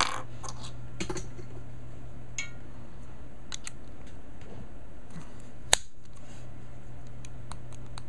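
Small plastic clicks and taps as a flat-pin plug is pushed into a black plastic flat-to-round plug adapter and handled on a wooden table. The loudest is one sharp click a little before six seconds in, over a steady low hum.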